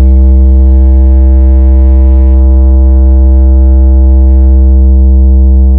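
Deep synthesized bass note held steady and very loud, the sustained 'vibration bass' tone of a DJ speaker-check remix, starting to fade near the end.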